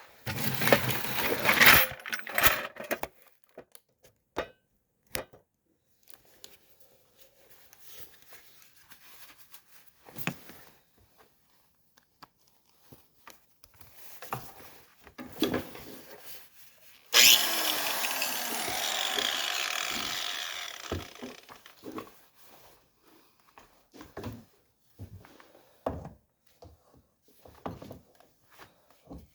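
Angle grinder cutting a steel exhaust pipe: a loud run of a few seconds in the first part and a steady run of about four seconds past the middle, its pitch wavering as it bites. Scattered knocks and clatters of handling the pipe and tools fill the gaps.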